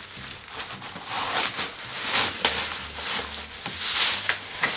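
Plastic or cardboard packaging rustling and crinkling as it is handled, in several swells, with a few sharp clicks in the second half.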